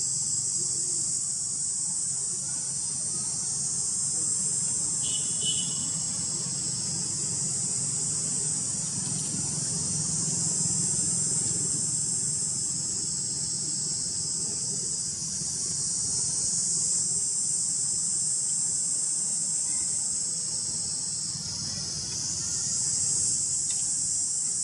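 Steady, high-pitched insect chorus that runs on without a break, with a faint low rumble underneath.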